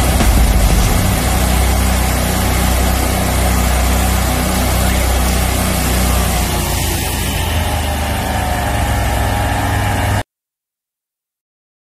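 Homemade 40-horsepower twin-engine 350-bar high-pressure sewer jetter running steadily under load, its engines' low hum under a loud hiss from the pump and water jet. The sound cuts off suddenly about ten seconds in.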